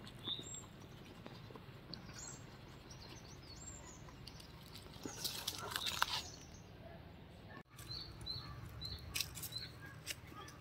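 Faint background with a small bird chirping now and then, and a quick run of about four chirps near the end. A brief burst of noise comes about five seconds in.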